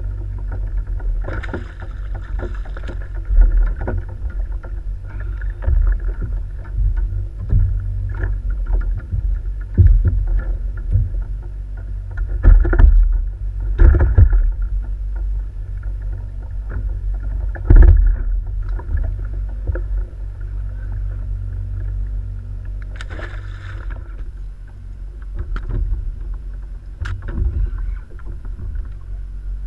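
Steady low rumble of wind and water around a kayak on open sea, with scattered sharp knocks of gear against the hull, the loudest a few seconds apart in the middle.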